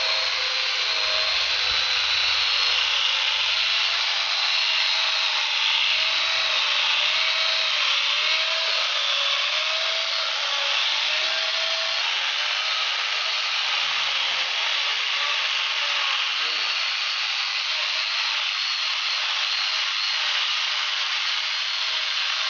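Electric angle grinder fitted with a chainsaw bar and chain, running steadily as the chain rips lengthwise through a wooden beam. The motor's whine wobbles in pitch during the first half of the cut.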